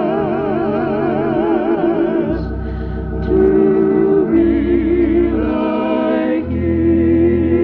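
Gospel worship music led by organ, with held chords over bass notes that change every second or so. A strongly wavering, vibrato tone sounds in the first couple of seconds.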